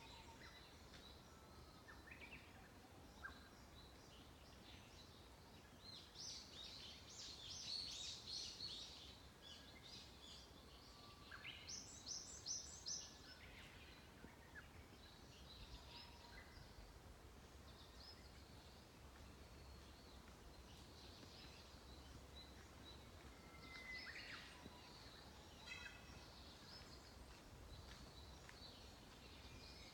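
Wild songbirds singing and calling faintly, with two busier bursts of song about six and twelve seconds in and scattered chirps between, over a faint low rumble.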